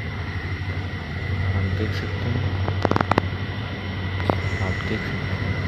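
Steady low hum of a train standing at the station, with a thin high whine running over it. A quick run of sharp clicks or knocks comes about three seconds in, and one more a second later.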